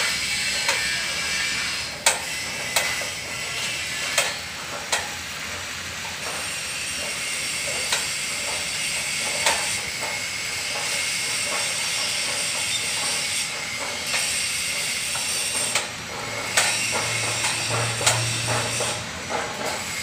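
Hand-cranked cable winch raising a steel telescopic tower mast, with irregular metallic clicks and knocks from the winch and the sliding mast sections over a steady hiss.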